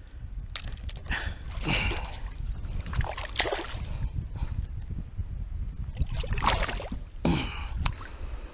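Lake water splashing and sloshing in a landing net beside a kayak as a small fish is handled in it by hand. The splashes come in irregular bursts about four times, over a steady low rumble.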